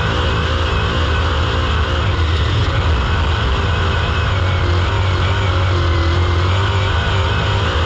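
Dirt Super Late Model race car's V8 engine running hard under racing load, heard from the onboard camera, its pitch rising and falling with the throttle through the corners.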